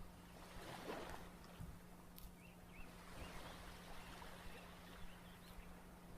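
Faint, wet slime sounds of slime being squished and handled, with soft crackles and a few tiny squeaky pops from small air bubbles, over a steady low hum.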